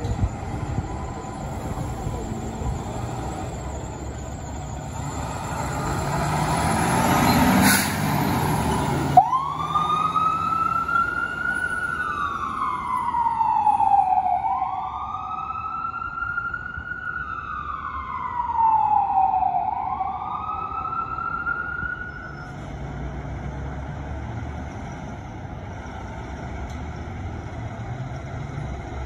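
Fire engine's siren wailing, sweeping slowly up and down about three times through the middle of the stretch, with the truck's engine running before and after it. A single sharp knock comes just before the siren starts.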